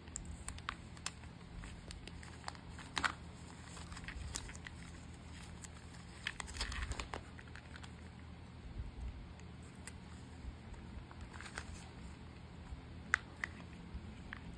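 Hand-packing of small parcels: scattered crinkles of plastic packaging and light clicks and taps, with a denser stretch of rustling about six to seven seconds in, over a faint low hum.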